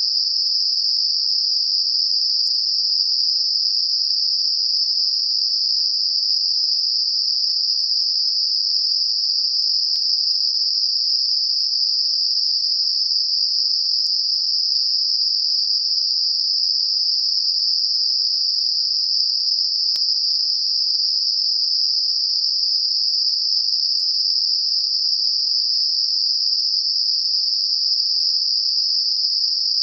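Computer-generated narrow-band noise centred on about 5 kHz: a steady, high-pitched hiss with nothing below or above it, made as a tinnitus masker.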